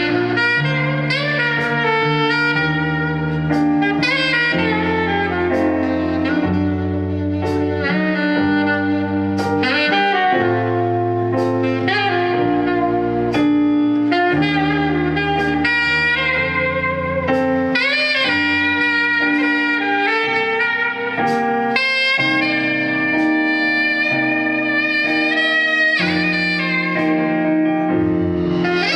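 Live band playing an instrumental number: a lead melody line over changing bass notes and a steady drum beat.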